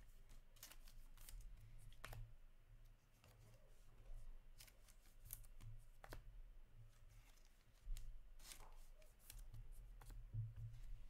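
Faint handling of hockey trading cards: scattered light clicks and rustles as the cards are shuffled and slid, over a steady low hum.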